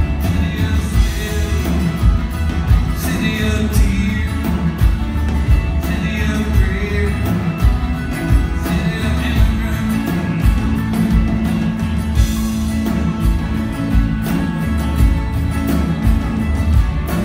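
Live country-rock band playing: acoustic and electric guitars over drums keeping a steady beat, with a man singing, heard from the audience seats.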